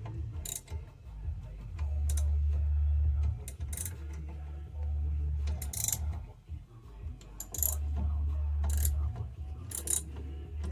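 Metal hand tools clicking and clinking against the car's front brake parts as the caliper is taken off. Underneath runs a low hum that swells and drops away several times, and it is the loudest thing heard.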